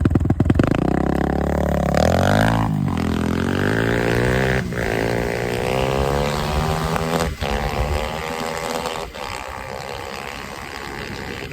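Sur-Ron Ultra Bee electric dirt bike's motor whine, rising in pitch as it accelerates and then holding, with a few sharp knocks. It fades into rushing wind and tyre noise near the end.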